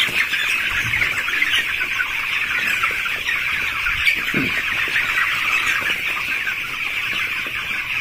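A large flock of 19-day-old broiler chicks peeping steadily, a dense chorus of many overlapping chirps.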